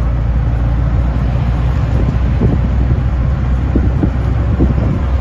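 A road vehicle driving along at speed: steady engine and road noise with wind buffeting the microphone.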